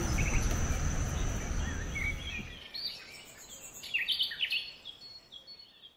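Forest ambience of birds chirping in short rising and falling calls, over a steady high whine and a low rumble. The whine and rumble drop away about two and a half seconds in, leaving quieter chirps that fade out near the end.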